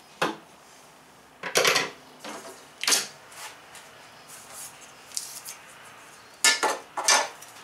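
Blue painter's tape peeled off and a long metal straight edge lifted down and handled, in a few short rasping, clattering bursts.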